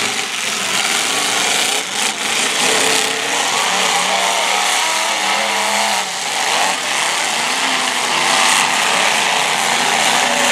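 Several demolition derby cars' engines running and revving together, their pitch rising and falling over a loud, dense mechanical din.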